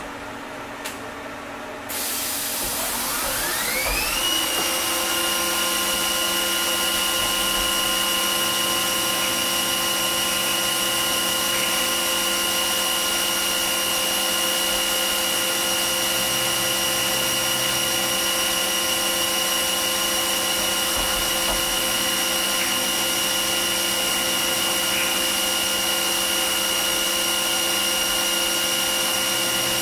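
Fadal CNC mill spindle spinning up with a rising whine about two to four seconds in, then running at a steady high whine while an end mill cuts black plastic handle blanks.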